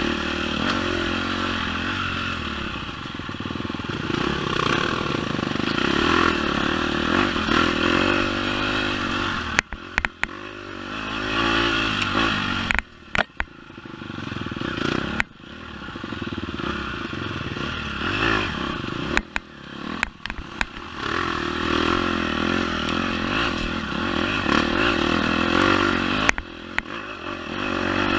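Dirt bike engine under way on a rough trail, revving up and easing off with the throttle, with the revs chopped sharply several times. Knocks and clatter from the bike over the ground come through at those moments.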